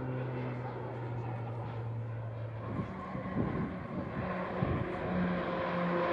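Pilatus PC-7 Mk II turboprop engine and propeller drone, falling slightly in pitch and fading out about halfway as the solo aircraft flies off. A few rough knocks follow, then the engines of the four-ship formation hum in, growing louder near the end.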